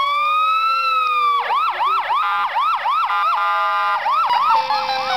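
Fire truck siren sounding one slow wail that rises and falls, then switching to a fast yelp of about three to four chirps a second, broken briefly by a steady tone about three seconds in. A second, lower tone slowly falls in pitch underneath.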